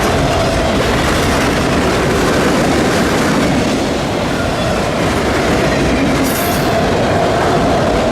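Freight train cars rolling past: a steady rumble and clatter of steel wheels on the rails, with a faint steady wheel squeal running under it.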